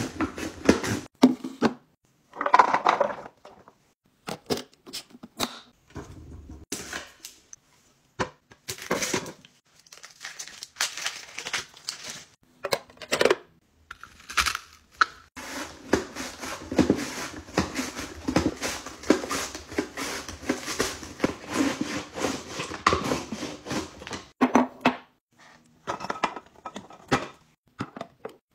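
Vegetables being cut on a plastic mandoline slicer over a clear catch box: runs of quick scraping strokes as carrot and onion are pushed across the blade, broken by sharp clicks and knocks as the plastic parts and containers are handled.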